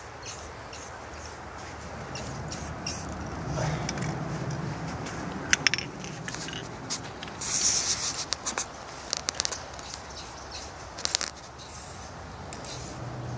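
Aerosol spray-paint can spraying onto a wall in short hisses, with sharp clicks here and there, loudest about halfway through.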